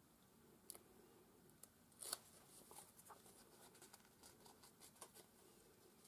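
Near silence with faint rustles and small clicks of paper and card handled by hand. The clearest is a brief rustle about two seconds in.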